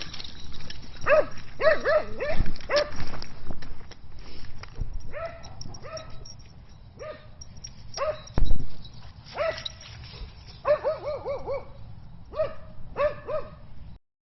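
A dog barking in short groups of high barks, with a quick run of about five barks about eleven seconds in. A loud low thump comes about eight seconds in.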